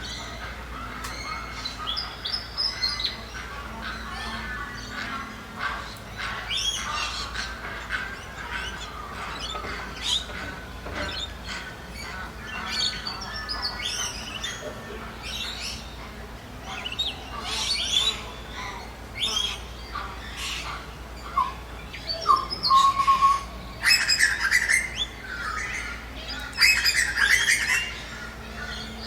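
Several birds calling and chirping together in a forest, with many short overlapping chirps and some louder harsh squawking calls near the end.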